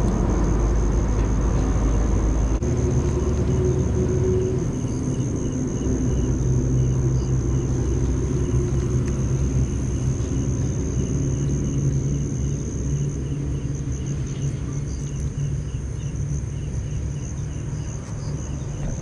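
Night insects, crickets, trill steadily in a high continuous pulsing tone, with a second fainter chirping insect beneath them. Under them runs a loud, steady low rumble.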